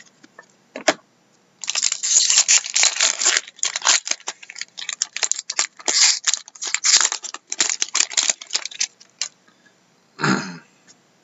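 A foil trading-card pack wrapper being torn open and crinkled by hand: dense, sharp crackling for about seven seconds, then stopping.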